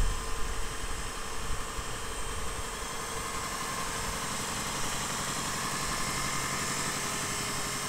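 1989 Mazda B2600i's 2.6-litre fuel-injected four-cylinder engine idling steadily, heard close up from the open engine bay.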